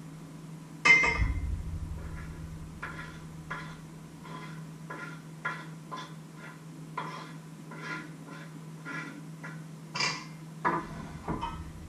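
Kitchen knife scraping and tapping chopped food off a wooden cutting board into a bowl, in short strokes about twice a second. A heavy thump about a second in, and a couple more knocks near the end.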